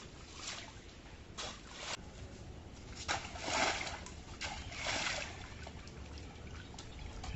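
Bare feet wading through shallow muddy water, a series of splashes and sloshes with each step, the loudest a little past the middle.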